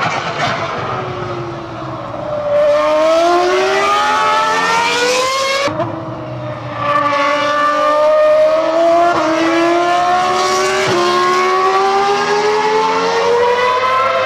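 Ferrari Formula One car's V10 engine at high revs, its pitch climbing as it accelerates. It breaks off sharply and drops about six seconds in, then climbs again with two brief breaks later on.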